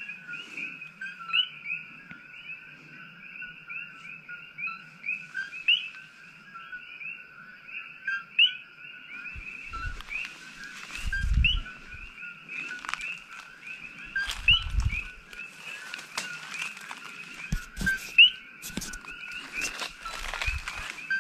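A chorus of coqui frogs calling: many overlapping two-note "co-qui" calls, a lower note then a higher upswept one, repeated without pause. From about nine seconds in there is rustling of brush with a few low bumps of handling or footsteps.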